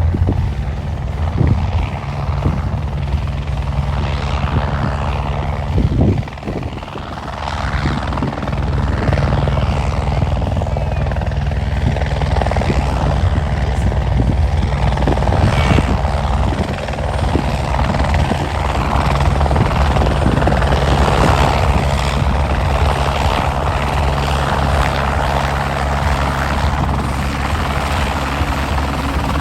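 Life Watch air-ambulance helicopter coming in, its rotor and engine running loud and steady with a rushing wash of air, dipping briefly about six seconds in.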